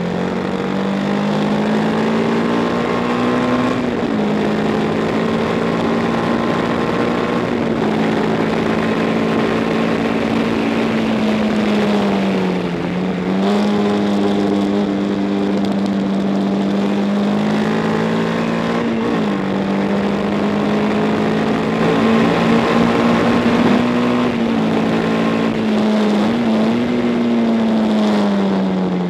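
1962 Matchless G50 single-cylinder racing engine at high revs, heard from onboard the bike. The pitch holds high and steady for stretches, dips and picks up again several times, and falls away near the end as the bike slows.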